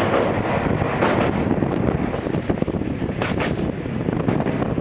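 Gakunan Railway 7000 series electric railcar running at speed, heard from inside the car: a steady rumble of wheels and running gear with a rush of air noise, and a brief sharper hiss about three seconds in.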